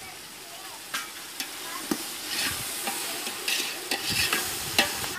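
A metal ladle stirs a sizzling tomato-and-onion gravy in an aluminium pot, knocking against the pot several times and scraping around inside it.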